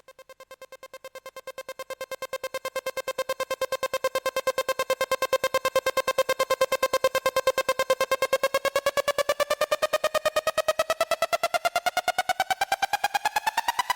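Electronic music: a single synthesizer note pulsing rapidly, fading in and growing louder over the first few seconds, then sweeping upward in pitch near the end.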